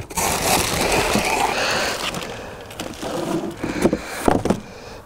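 Plastic wrapping crinkling and cardboard packaging scraping as a compound bow in a plastic bag is pulled out of its cardboard box. The rustling is loudest for the first couple of seconds, and a few sharp knocks come about four seconds in.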